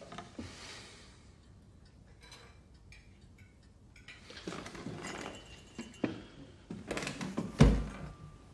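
A man getting up from a table: clothes rustling and a bentwood chair shifted on the floor, with a dull thump near the end. Quiet room tone for the first few seconds.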